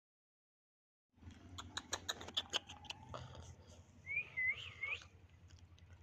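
Cardboard box being handled and cut by hand: a quick run of sharp clicks and crackles starting about a second in, then a short warbling bird chirp about four seconds in.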